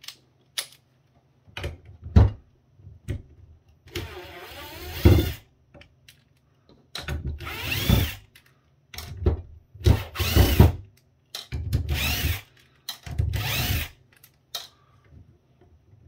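Cordless drill backing small screws out of a laptop power adapter's metal shielding. It runs in about five short bursts, each with a motor whine that rises and falls, after a few light handling knocks.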